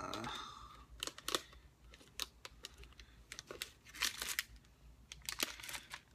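Plastic snack wrappers and candy packets crinkling and clicking in short irregular bursts as they are handled and lifted out of a cardboard box.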